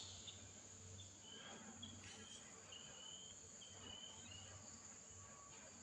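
Faint outdoor background: a steady high insect drone with a string of short, high chirps through the middle.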